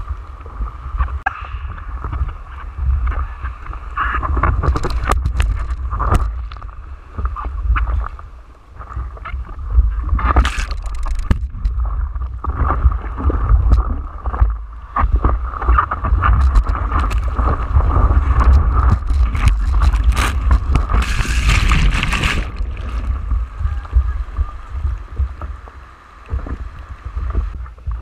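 Surf water splashing and sloshing against a foam surfboard and over the microphone, under a steady low rumble of wind buffeting the microphone. Louder splashes come about ten seconds in and again about twenty-one seconds in.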